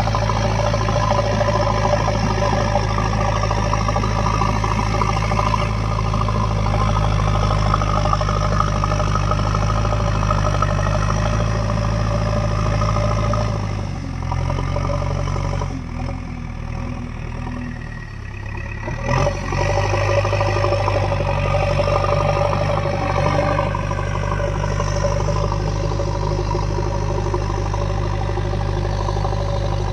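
JCB 3DX backhoe loader's diesel engine running steadily, dropping in speed and loudness for about five seconds about halfway through, then picking back up.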